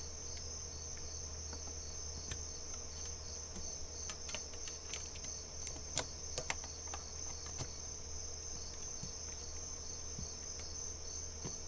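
Crickets chirping in a steady, high, continuous trill, with a scattering of light clicks and taps in the middle as a rechargeable headlamp is handled and connected to charge.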